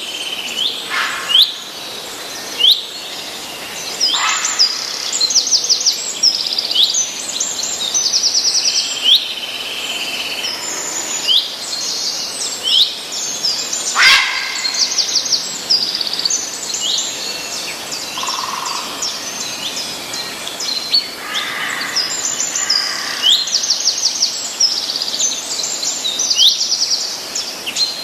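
Several small birds singing and calling together: many short rising chirps and fast, high trills, repeated throughout over a faint steady background hiss.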